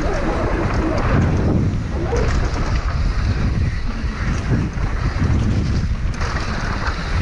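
Wind rushing over the microphone together with the rumble of downhill mountain-bike tyres rolling fast over a dirt and gravel trail, with scattered small clicks and rattles from the bike and loose stones.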